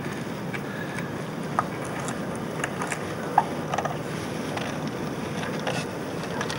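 Small metallic clicks and scrapes from a hand tool worked around a fitting on a German magnetic mine, irregular, the sharpest about three and a half seconds in, over a steady rush of wind.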